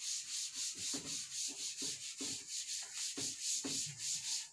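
A cloth wiping chalk off a blackboard in quick back-and-forth strokes, about four a second.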